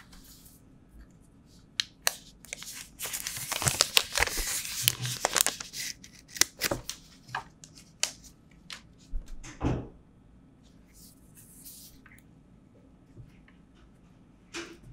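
Smartphone packaging handled close to the microphone: plastic crinkling and tearing for a few seconds, with scattered sharp clicks and taps.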